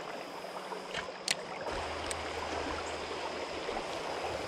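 Shallow river current flowing steadily, with a sharp click a little over a second in and a fainter click about two seconds in.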